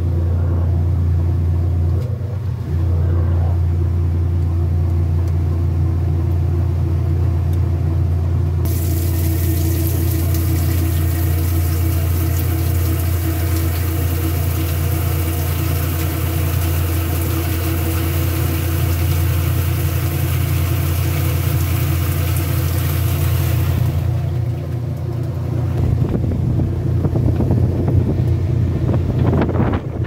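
Top-loading washing machine spinning its basket, the motor giving a steady low hum. About nine seconds in, water starts spraying into the turning drum with a loud hiss that stops abruptly a few seconds before the end, a spray rinse during the spin.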